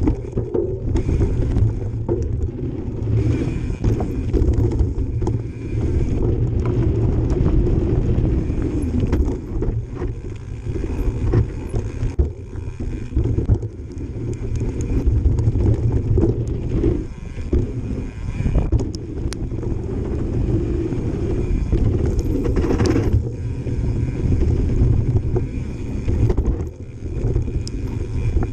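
Mountain bike descending a dirt trail: tyres and frame rumbling over the ground with wind on the microphone, the rear hub's freewheel buzzing with a steady high ratchet tone while coasting, and a sharper clatter of impacts about 23 seconds in.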